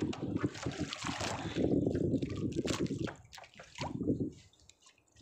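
Water sloshing and trickling with scattered knocks and handling noises in a small wooden boat, fading to near quiet about four seconds in.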